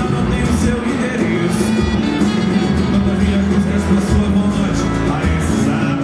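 Brazilian pagode band playing: a steady bass line under dense percussion, with cymbal hits about once a second.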